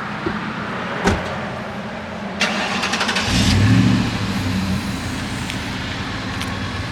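A car engine running with a steady hum. There is a sharp click about a second in and a rattle at about two and a half seconds, then the engine note swells for about a second before settling back.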